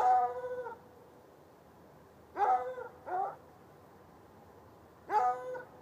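A hound barking: a drawn-out, pitched bark at the start, two shorter barks about two and a half and three seconds in, and another bark near the end.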